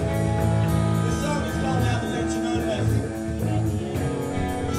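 Metal band playing live: distorted electric guitars and bass through amplifiers over a steady drum beat with regular cymbal hits.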